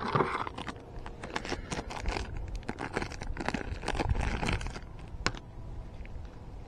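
Thin plastic packaging bag crinkling as piston rings are pulled out of it: a run of irregular crackles that dies down about five seconds in.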